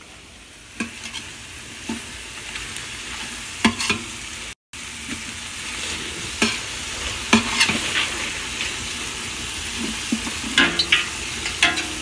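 Chicken and onions sizzling steadily as they fry in a large stainless-steel pot. A metal spoon scrapes and knocks against the pot several times as it stirs them. The sound cuts out for an instant about halfway.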